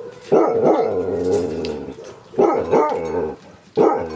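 A dog giving repeated drawn-out, wavering cries, three in a row.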